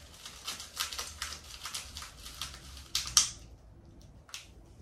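Thin clear plastic plant pot crinkling and clicking in the hands while a plastic clip is worked onto it. A run of quick crackles ends in a sharper crackle about three seconds in, with one more click near the end.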